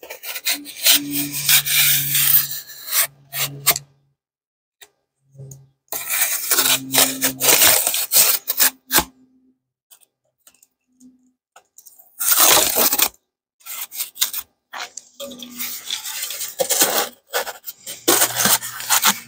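A knife cutting through a dense expanded-polystyrene foam board, about an inch thick, in several bouts of strokes separated by short pauses.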